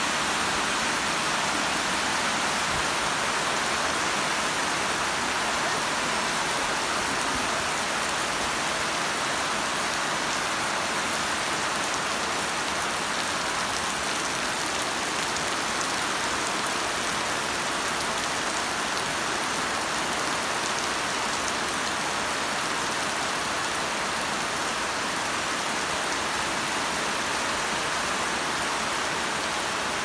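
Heavy rain falling steadily, a dense, even hiss that keeps up without a break.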